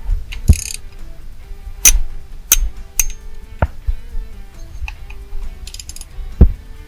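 Background music over hand-tool work on a truck's steering column: short bursts of ratchet clicking and about half a dozen sharp metallic clinks and knocks, the loudest near the start and near the end.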